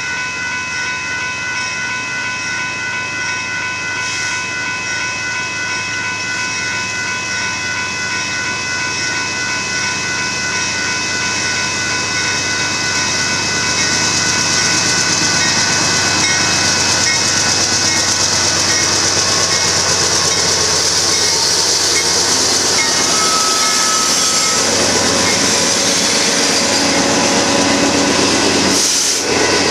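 A Union Pacific freight train led by several diesel locomotives approaches and rolls past a grade crossing. Engine and wheel noise builds and grows loudest from about halfway through as the locomotives pass. A crossing warning bell rings steadily throughout.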